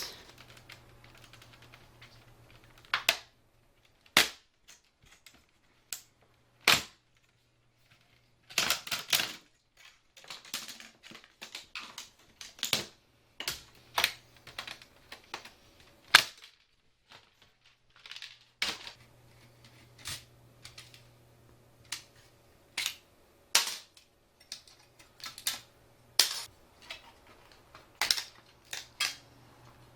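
Irregular sharp plastic clicks and snaps of an old LCD monitor's case being pried and pulled apart by hand.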